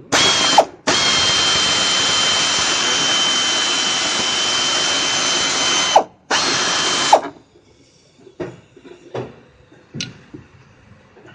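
Pneumatic (air) ratchet running on a bolt in three runs, a steady hiss with a thin high whine; the middle run lasts about five seconds. After about seven seconds it stops, leaving only a few light knocks.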